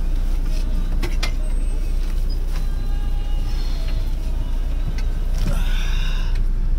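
Steady low rumble of a coach bus engine heard from inside the passenger cabin, with a few sharp clicks and creaks of the bus body.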